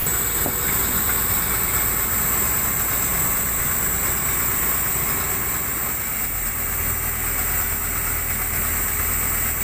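Excavator diesel engines running steadily under a constant hiss, with a low drone that grows stronger about two-thirds of the way through.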